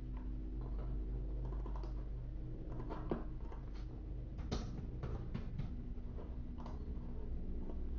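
Computer keyboard typing in scattered, irregular keystrokes, over a steady low hum.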